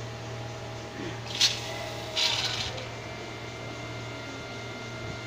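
CNC turning lathe running with a steady low hum, with a short sharp hiss about a second and a half in and a longer hiss about half a second later.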